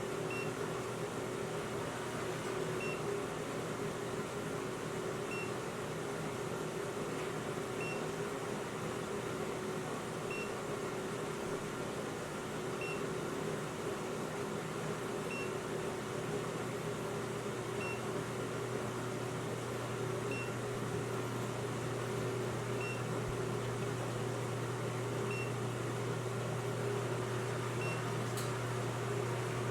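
A steady low hum, with a carbon monoxide detector giving a single short high beep about every two and a half seconds.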